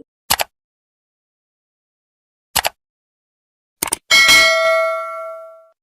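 Three short clicks spaced a second or two apart, then a single bright bell ding about four seconds in that rings out and fades over about a second and a half.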